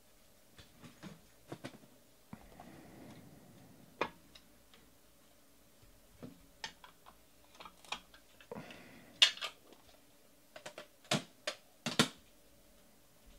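Light clicks and taps of trading cards and a clear plastic card holder being handled and set down on a tabletop, with a soft sliding rustle a couple of times. The sharpest clicks come in the second half.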